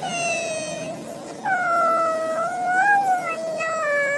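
A small Shih Tzu-type dog crying in high, drawn-out howls: one short held cry at the start, then after a brief pause a long wavering howl that rises and falls in pitch. It is the crying of a dog upset at being left behind.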